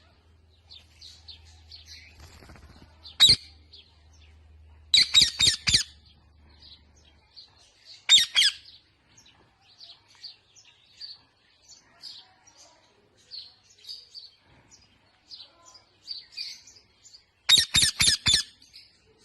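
Parrot chirping almost continuously, broken by loud harsh squawks: one short squawk, then quick runs of four or five squawks about five seconds in and again near the end.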